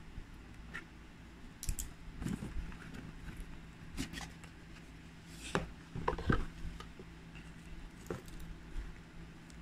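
Ring packaging being handled and opened by hand: scattered clicks, taps and rustles of the box and wrapping, with a cluster of louder clicks about six seconds in.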